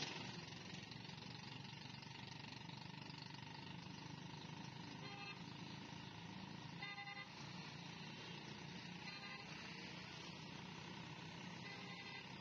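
Faint, steady noise of dense city road traffic: motorcycles, auto-rickshaws and vans running past, with a few brief horn beeps about five, seven and nine seconds in.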